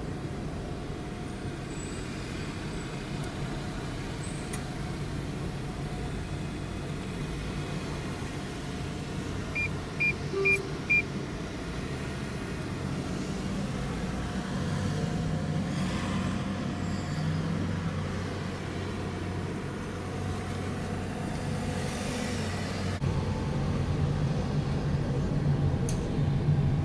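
Motor vehicle running with a steady low road rumble. Four short, evenly spaced high beeps come about ten seconds in.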